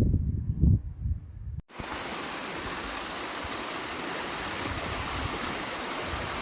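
Wind gusts buffeting the microphone. After an abrupt cut about a second and a half in, they give way to a steady, even rushing hiss.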